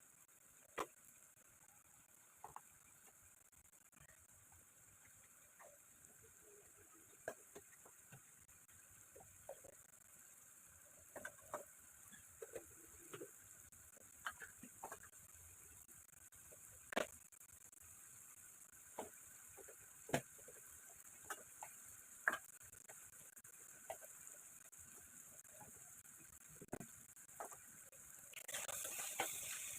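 Sparse faint clicks and light knocks, roughly one every second or two, over quiet room tone; a steady hiss comes in near the end.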